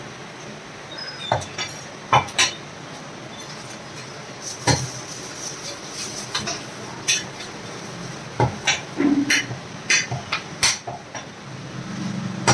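Butcher's cleaver chopping mutton on the bone and striking a wooden chopping block: sharp, irregular chops, coming in a quick run between about eight and eleven seconds in.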